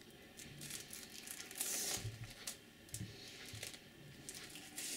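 Thin plastic sausage casing being slit with a knife and peeled off by hand, giving faint, scattered crackles of the film that are loudest for a moment about two seconds in.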